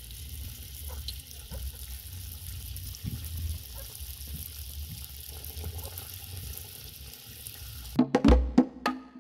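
Stuffed dough balls deep-frying in hot coconut cooking oil in a wok, a steady sizzle with a low rumble underneath. Percussive music with a wood-block beat cuts back in about eight seconds in.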